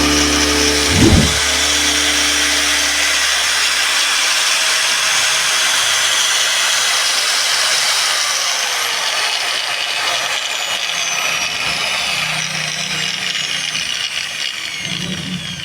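DCA electric angle grinder running free with a high whine, on a test run after its field coil has been changed. In the second half its pitch slowly falls and it grows quieter as it spins down.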